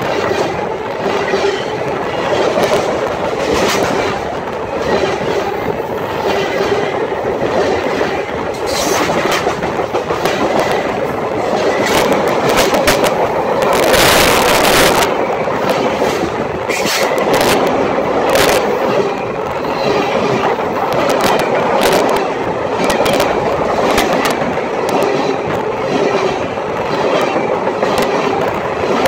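BNSF freight cars rolling directly over the microphone: a loud, continuous rumble of wheels and undercarriage on the rails, broken by sharp clacks as wheels pass. A brief louder rush of noise comes about fourteen seconds in.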